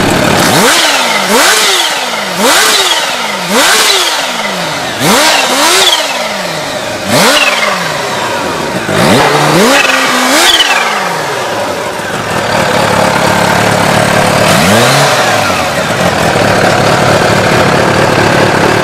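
Kawasaki Ninja H2R's supercharged inline-four being revved hard in quick blips, each one rising sharply and falling back, about nine in the first eleven seconds. Then it runs more steadily, with one more short rev about fifteen seconds in.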